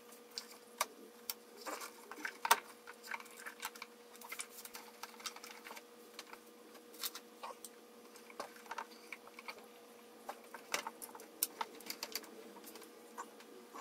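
Irregular light clicks and taps of hands handling wires and parts in a car's engine bay, with the engine not running; the sharpest click comes about two and a half seconds in.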